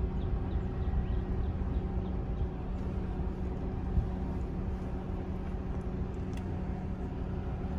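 Car driving slowly along a dirt track: steady low engine and road rumble with a faint hum, and a single knock about four seconds in.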